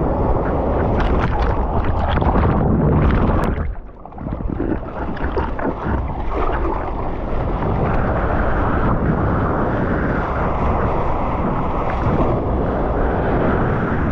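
Heavy wind and rushing water against a GoPro action camera's microphone while surfing, a dense low rumble with a short drop in level about four seconds in.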